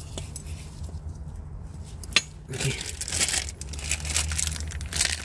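A new clutch release bearing being pushed onto its guide sleeve and fork in a manual gearbox bell housing: a sharp click about two seconds in, followed by bursts of rustling and scraping from gloved hands on the metal and plastic parts.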